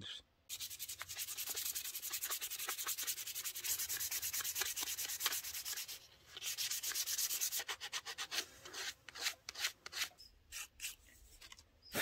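A hand-carved wooden spoon being worked with sandpaper: rapid back-and-forth rubbing strokes that pause about six seconds in, resume briefly, then become slower and sparser near the end. This is the final smoothing of the spoon before oiling.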